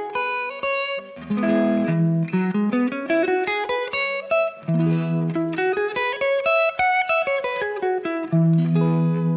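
Electric guitar alternating a strummed E major chord shape with a quick pentatonic scale run, chord then scale position by position. Three chords ring in turn, and the single-note runs between them step upward in pitch.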